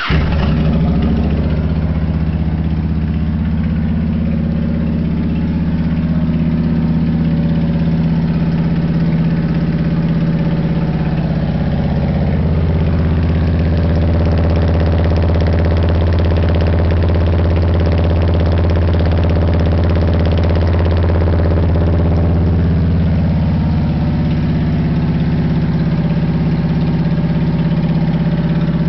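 V-twin cruiser motorcycle engine through Cobra Lo-Boy Shotgun exhaust pipes, firing up at the start and then idling steadily with a deep, even exhaust note. The low part of the note grows stronger for several seconds in the middle, then settles back.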